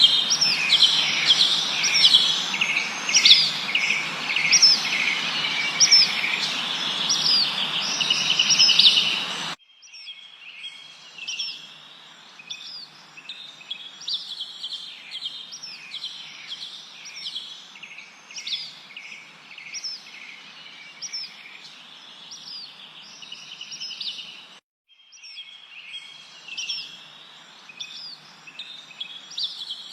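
Many small songbirds chirping and trilling in a dense chorus of short, quickly repeated high notes over a soft hiss. About nine seconds in the whole sound drops suddenly to a much quieter level, and it cuts out for a moment near the end.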